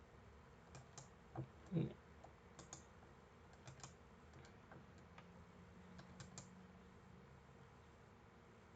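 Faint, irregular clicking of a computer mouse and keyboard over quiet room hiss, with two louder clicks a little under two seconds in.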